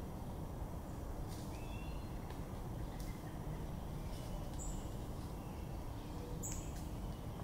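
Steady low outdoor background noise with a few short, faint, high bird chirps scattered through it.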